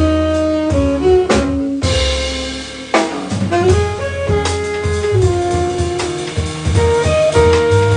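Live jazz band playing: a saxophone carries a melodic line over walking double bass, drum kit, guitar and piano. Cymbal crashes come about one and a half seconds and three seconds in.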